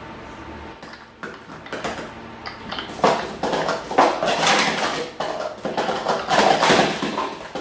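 Hard plastic sport-stacking cups (Speed Stacks PS2X gold) clattering and clicking as they are rapidly stacked up and down in a timed run. A few scattered clicks come about a second in, and a fast, loud continuous clatter starts about three seconds in.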